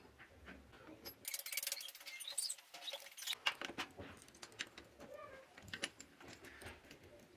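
Faint, scattered small metal clicks and scrapes as bolts and the cover are fitted by hand onto the head of a donkey-type water pump.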